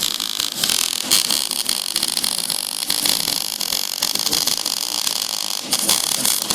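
Electric arc welding: a steady crackling hiss from the arc, broken by sharp pops.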